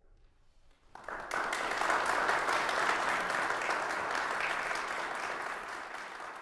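Audience applauding: after a brief hush the clapping starts about a second in, swells quickly and then eases off slightly toward the end.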